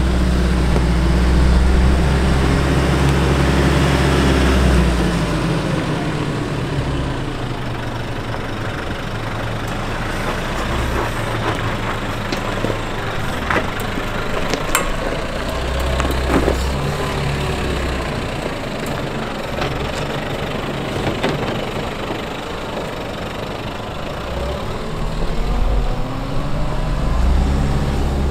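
A 4WD vehicle's engine running as it drives slowly down a steep dirt track, its note rising and falling. Scattered sharp clicks and knocks come through in the middle of the passage.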